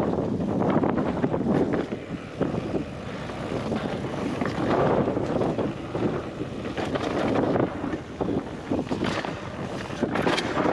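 Strong wind buffeting the GoPro's microphone in gusts while a mountain bike rolls down a rocky gravel trail, its tyres crunching over stones and the bike rattling. There are sharper clatters over rocks a little before the end.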